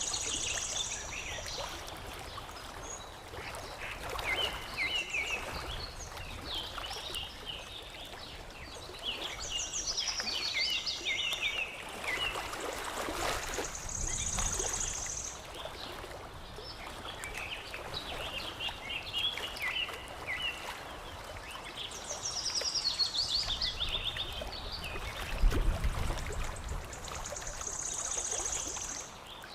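Small songbirds chirping in quick, warbling phrases that recur at intervals, over water lapping and trickling, with a low splash-like thump near the end.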